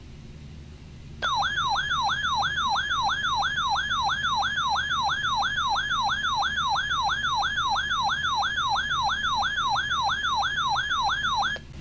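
Weather alert radio's alarm sounding for a severe thunderstorm warning: a loud electronic warble sweeping up and down about three times a second. It starts about a second in and cuts off just before the end.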